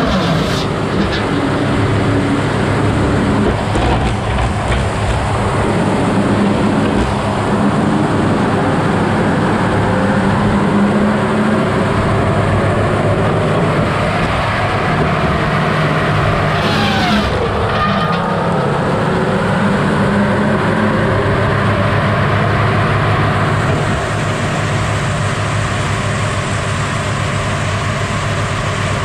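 Six-foot circular slasher saw blade spinning and cutting through a stack of logs, over the steady running of the heavy machine that drives it. About seventeen seconds in, a whine dips in pitch and comes back up.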